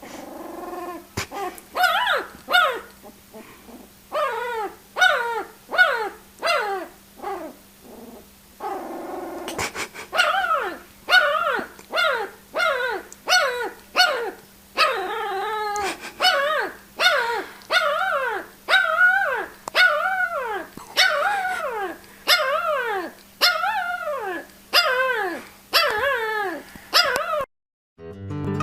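A pet animal making a long series of short, pitched vocal calls, about one a second, each falling in pitch. The calls stop near the end, and guitar music begins.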